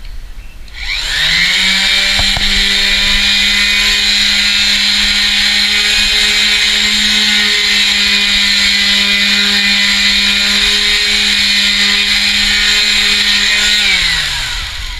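Vibrating sander sanding body filler: its motor spins up about a second in, runs at a steady pitch, then winds down with a falling pitch near the end.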